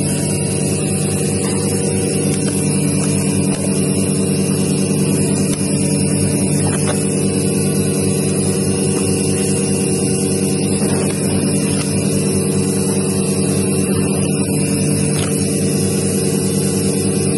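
Rice vacuum vertical form-fill-seal packing machine running: a steady mechanical hum with a constant low drone and a hiss above it.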